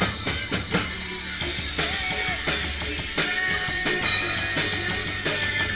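Live band playing rock-style music: electric guitar, bass and drum kit with a steady beat.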